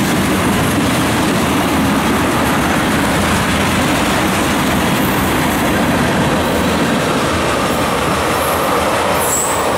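Freight train of tank cars and a covered hopper rolling past close by: a loud, steady rumble and clatter of steel wheels on the rails.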